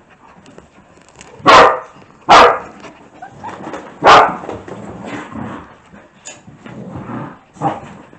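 Dogs barking during play: three loud, sharp barks in the first half, then quieter, scattered dog noises.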